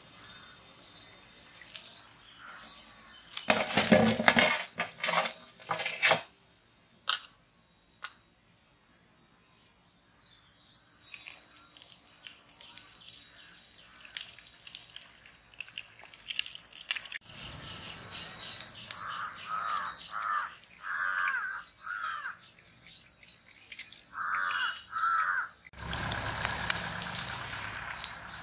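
Hot oil sizzling as battered eggs deep-fry in a kadai, with loud bursts a few seconds in and a louder, steadier sizzle near the end. Crows caw about eight times in two runs in the second half.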